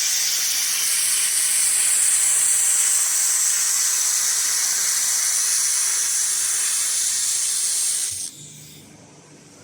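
Steady hiss of a fiber laser welding machine at work, cutting off suddenly about eight seconds in.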